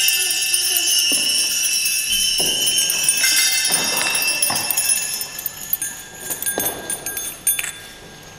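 Altar bells, a cluster of small handbells, shaken by a server at the elevation of the chalice during the consecration at Mass: a bright, jangling ringing that thins out and fades away over the second half.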